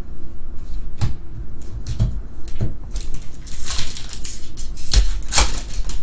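Trading cards being flipped and tapped in the hands with a few soft clicks, then a foil trading-card pack crinkling and tearing open in the second half.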